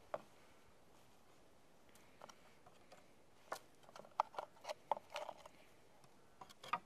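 Faint, scattered clicks and rustles of small fishing tackle (hook, leader and line) being handled on a wooden table, busiest in the middle and again just before the end.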